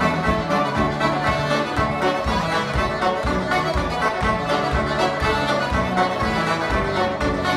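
Banjo and accordion playing a tune together live, with a steady beat underneath.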